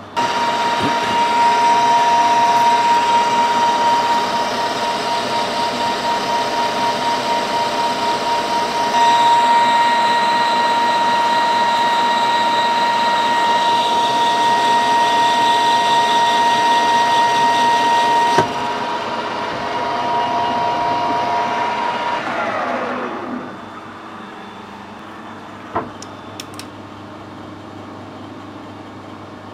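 Metal lathe running and turning a bar with a carbide insert tool, its gearing giving a steady whine. It is switched off about two-thirds of the way through and the spindle winds down, falling in pitch. A light click comes a few seconds later.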